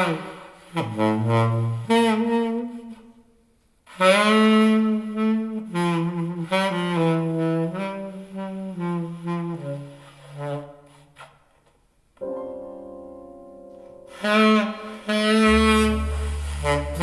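Jazz music with a saxophone playing melodic phrases, falling silent briefly about four seconds in and again about twelve seconds in. Held keyboard chords then sound, with a deep bass note entering near the end. It is played back through Radiotehnika S-90 loudspeakers.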